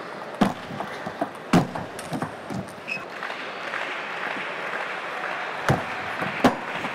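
Sharp clicks of a celluloid table tennis ball striking bat and table: a few in the first two seconds, then two more near the end about a second apart as the serve is played. A steady hiss of arena crowd noise runs under them from about halfway.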